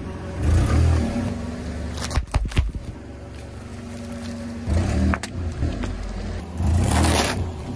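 Car tyre rolling slowly over small objects on asphalt and crushing them, in several separate passes over the steady hum of the car's running engine. A quick cluster of sharp cracks about two seconds in is brittle white sticks snapping under the tyre.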